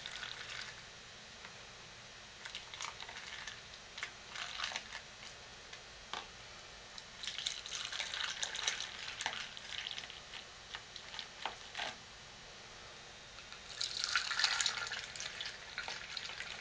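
Shea butter lotion pouring from a plastic pitcher through a plastic funnel into jars, a wet trickling and dripping that comes in spells with a few light ticks, loudest near the end.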